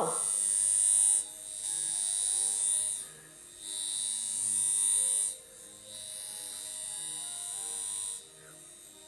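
Darsonval high-frequency electrotherapy comb buzzing with a high-pitched squeal from its glass electrode, louder the closer the comb is to the scalp. The squeal swells and drops back several times as the comb is drawn through the hair.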